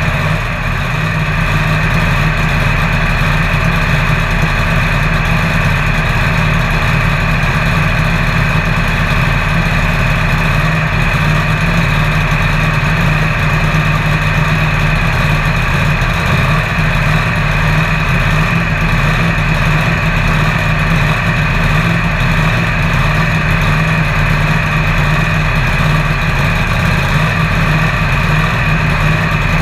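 Supercharged Pro Mod drag car engine idling steadily and loudly, heard from inside the cockpit.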